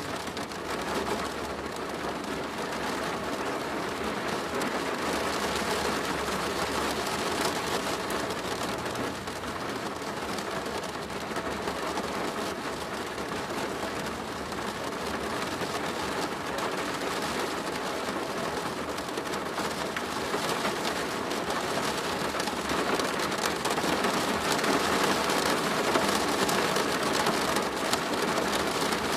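Steady rain drumming on a plastic roof, a dense even patter, with a low rumble underneath during the first third and the rain growing a little louder near the end.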